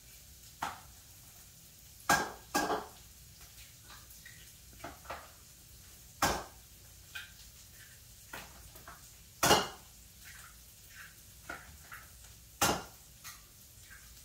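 Small glass essential-oil bottles clinking and tapping against each other as cypress oil is dripped from one bottle into another: irregular light ticks with a few sharper knocks.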